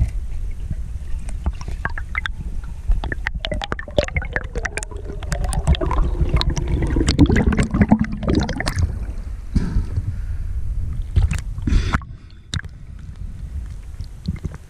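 Muffled underwater handling noise picked up by an action camera in its waterproof housing as a diver struggles with a speared fish on the spear shaft: a low rumble with many sharp clicks and knocks. A wavering tone falls in pitch through the middle, and the noise drops off about twelve seconds in.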